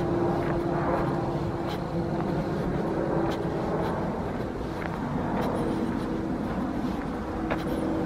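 Footsteps crunching on a wood-chip path at a walking pace, roughly once a second, over a steady low rumble of distant engine noise with a faint hum that fades out briefly midway.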